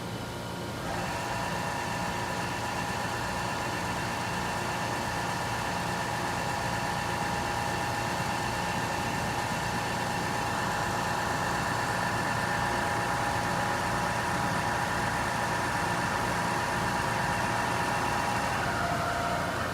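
Froriep CNC vertical boring mill's drive running: a steady electric whine of several tones starts about a second in over a low machinery hum, and drops in pitch near the end.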